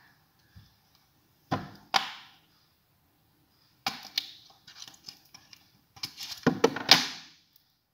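Handling noise from a new smartphone and its box: short knocks and clatters in separate bursts, with quiet between and the loudest near the end.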